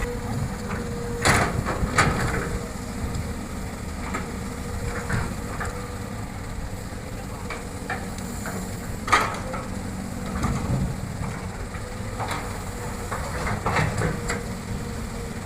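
Hitachi hydraulic excavator's diesel engine running steadily while it digs and loads soil into a dump truck, with several sharp clanks and knocks from the work, the loudest about a second in, two seconds in and about nine seconds in.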